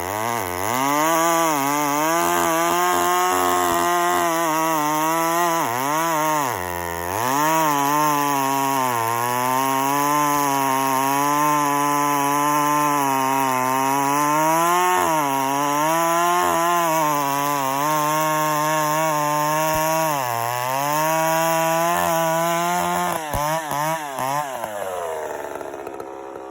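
Ported and piped Homelite 450 two-stroke chainsaw running at full throttle in a cut, its engine pitch sagging repeatedly as the chain loads up in the wood and recovering each time. Near the end the throttle is released and the engine drops toward idle.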